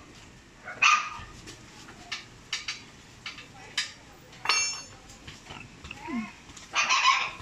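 A dog barking: one bark about a second in and two close together near the end, with a few light clicks in between.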